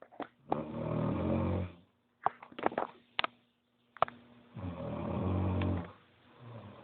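A man snoring: two long snores, each a little over a second and about four seconds apart, with several short sharp clicks between them.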